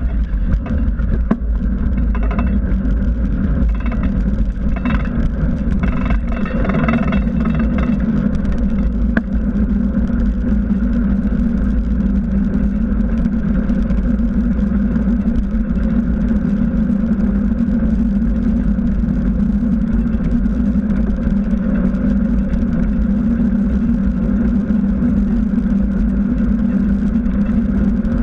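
Steady rolling noise of a bicycle ride picked up by a handlebar-level action camera: wind rumble on the microphone and a constant hum from the knobby front tyre on asphalt, with some rattling clicks in the first several seconds.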